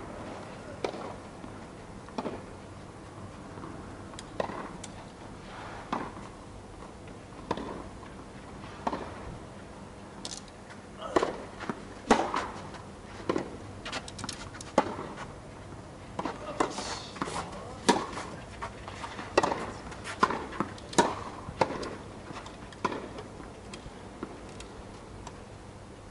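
Tennis ball being struck by rackets and bouncing on the court during play: single sharp knocks every second or two, coming more often in the second half.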